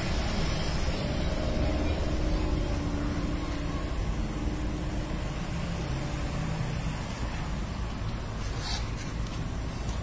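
Stone oil mill (kal chekku) running, its turning pestle grinding groundnuts into paste in the stone mortar: a steady low mechanical rumble, with one short click near the end.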